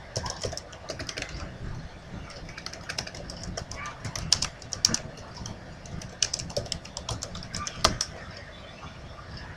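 Computer keyboard being typed on: irregular runs of key clicks, coming thickest about halfway through.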